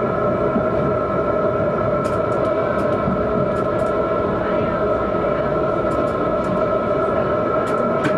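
Tram running steadily along the track, heard from inside the driver's cab: a constant rumble with a steady whine from the drive, and a few light clicks.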